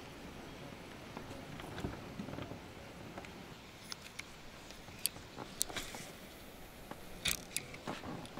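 Faint handling sounds: scattered light knocks and clicks, with a few sharp ticks in the second half.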